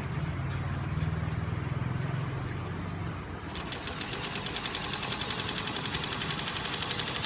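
Industrial wetsuit sewing machine: a low hum, then about three and a half seconds in it starts stitching with a fast, even clatter of needle strokes.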